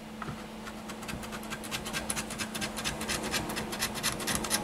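Rapid scraping strokes of a small hand tool worked back and forth along the edge of a tablet's plastic housing frame, cleaning the ledge where the display is glued. There are several strokes a second, starting about half a second in and growing louder.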